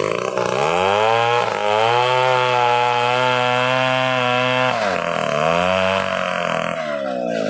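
Stihl two-stroke chainsaw revving: the engine speed climbs to full throttle and holds steady for about three seconds, drops back, then climbs again and settles back near the end.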